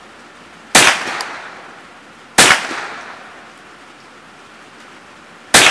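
Ruger 10/22 semi-automatic .22 LR rifle fired three times in slow, aimed succession: about a second in, about two and a half seconds in, and near the end. Each shot is a sharp crack trailing off in a short echo.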